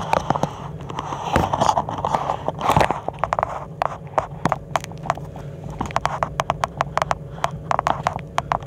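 Scraping, rustling and many sharp irregular clicks and taps of someone moving about in a cramped crawl space, over a steady low hum. The scraping is heaviest in the first few seconds, then thins to scattered clicks.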